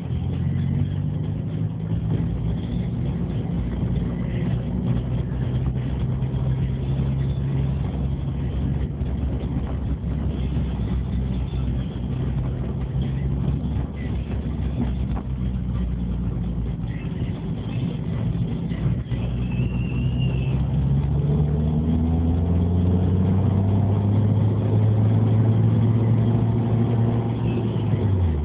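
Toyota Yaris engine through a Nitto full headerback exhaust, heard inside the cabin with the windows closed: a steady low drone at light throttle. About two thirds of the way in it rises in pitch and gets louder as the car accelerates. Just before the end the pitch falls suddenly as the revs drop.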